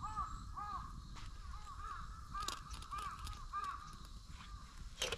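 Crows cawing: a run of quick repeated caws through the first four seconds, then a sharp double click near the end.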